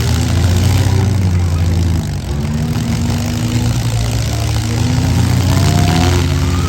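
Engines of several four-cylinder demolition derby cars running together, with revs rising and falling over a steady low drone.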